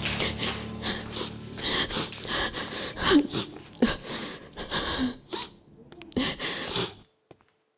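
A woman sobbing and breathing hard in short gasps, with a few brief whimpering catches in her voice; it dies away about seven seconds in.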